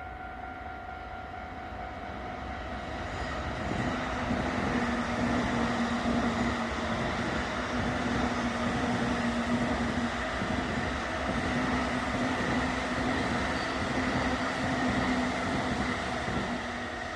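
A train passing through a Japanese railway level crossing. It grows loud about three to four seconds in, with a low steady tone under the noise of the cars, and eases off near the end. The crossing's warning alarm rings its steady tones around it.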